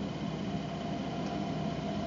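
Steady hum and low rumble of Rhaetian Railway electric trains: a Ge 4/4 III electric locomotive drawing in beside a standing ABe 8/12 electric multiple unit.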